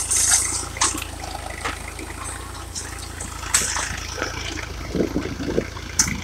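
Tractor engine running steadily under load as a tine cultivator tears through dry, cloddy soil, with a rushing, crumbling noise of earth through the tines and irregular knocks of clods against the frame.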